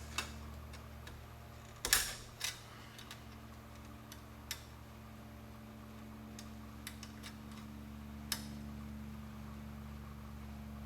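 Screwdriver working a metal window-trim clip on sheet metal: scattered clicks and scrapes, with a louder clatter about two seconds in, over a steady low hum.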